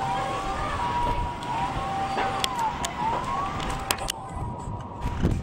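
Emergency vehicle sirens sounding: a two-tone high-low siren alternating about once a second, with a wailing siren rising and falling over it. A few sharp clicks and a louder knock near the end sound over them.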